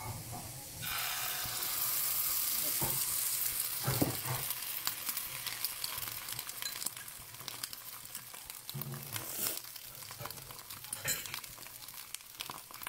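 Beaten egg and ground pork poured into hot oil in a nonstick frying pan, sizzling. The sizzle starts suddenly about a second in and slowly dies down as the egg sets, with a few light knocks.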